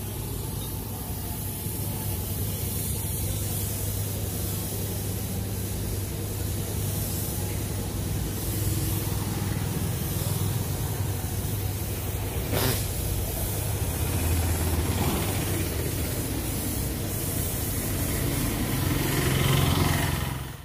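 Compressed-air gravity-feed spray gun hissing steadily as primer is sprayed onto a car's repaired body panel, over a low steady hum, getting a little louder near the end.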